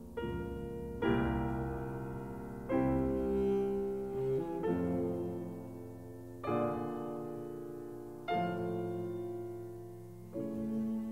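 Background music: slow, classical-style piano chords, each struck and left to ring and fade before the next comes a second or two later.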